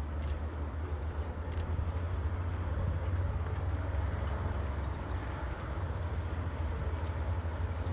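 Antonov An-12's four turboprop engines running as it taxis at a distance, a steady low drone and rumble.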